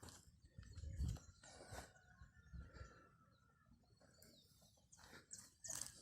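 Faint outdoor ambience with scattered light clicks and rustles and a few faint bird chirps; no chainsaw is running.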